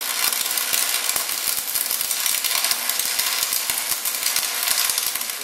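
Shielded metal arc (stick) welding: the covered electrode's arc crackling steadily, full of sharp pops.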